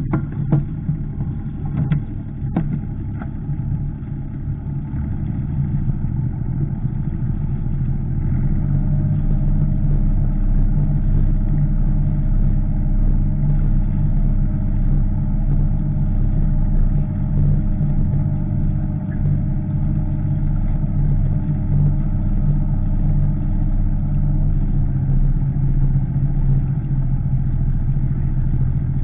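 An engine running steadily at low revs, growing louder about eight seconds in, with a few sharp clicks near the start.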